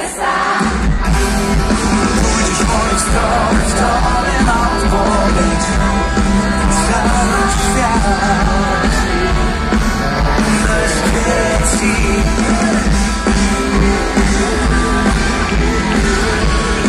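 Live pop-rock band playing a song with singing, loud through the stage PA and heard from within the crowd.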